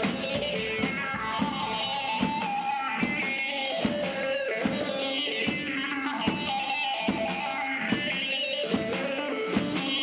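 Live Turkish folk dance music from a small band: a plucked long-necked string instrument carries the melody over a drum kit, with a steady beat and a strong drum hit about every 0.8 seconds.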